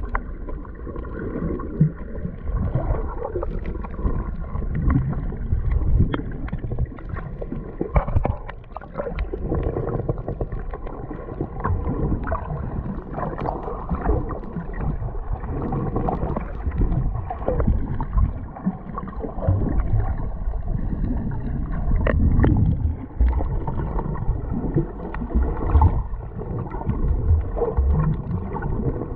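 Water gurgling and sloshing with an uneven low rumble.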